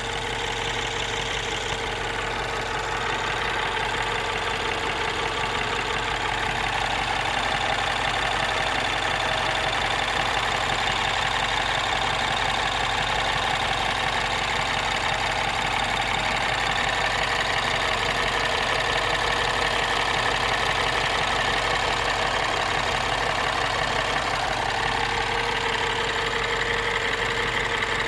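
The N18 1.6-litre turbocharged four-cylinder of a 2012 MINI Cooper S (R56) is idling steadily, with a fast clicking/ticking from the engine compartment. The owner feared a timing-chain fault, but BMW judged the noise normal.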